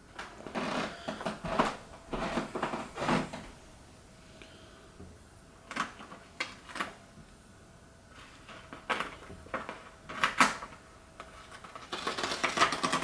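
Cardboard packaging being handled: irregular bursts of rustling and scraping with short pauses between them, busiest in the first few seconds and again near the end.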